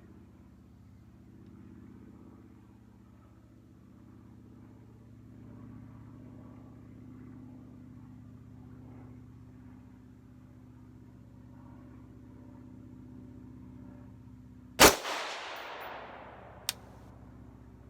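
A single 5.56 rifle shot from a Mk12 Mod1 clone firing 77-grain match ammunition. It is sharp and loud and rings off over about a second and a half. A shorter, fainter crack follows about two seconds later, over a steady low hum.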